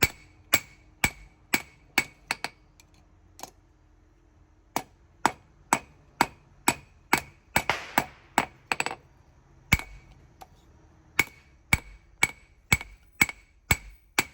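Hammer blows on hot spring steel over an anvil, about two strikes a second, each with a short metallic ring. There are two brief pauses between runs of blows. The blade of a small knife is being flattened out.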